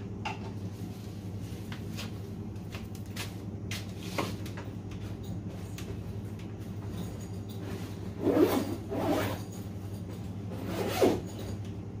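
Steady low hum of a commercial fridge's refrigeration compressor running while it is being charged with refrigerant, with a few short knocks and rustles in the last few seconds.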